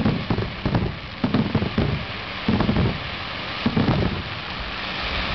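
Aerial fireworks shells bursting in quick succession, a string of booms about every half second. Near the end the booms give way to a steady crackling hiss from crackling or glittering stars.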